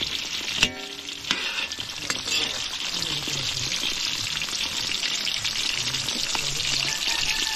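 Dried moray eel pieces sizzling steadily as they deep-fry in hot oil in a metal wok, stirred with a metal ladle. The ladle strikes the wok with a sharp ringing clank about half a second in and knocks again a moment later.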